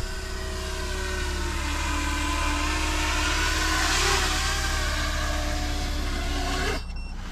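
Motors and propellers of a 10-inch FPV quadcopter (Foxeer Black Hornet 3210 900KV motors) whining as it comes in to land. The whine grows louder over the first few seconds, its pitch sagging slightly, then cuts off suddenly near the end as the motors stop after touchdown.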